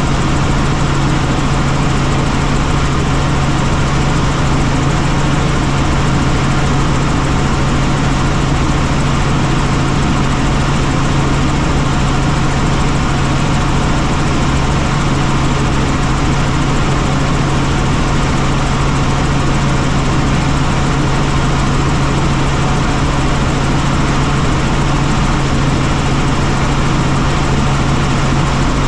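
Helicopter in flight: a loud, steady drone of engine and rotor with a strong low hum that never changes.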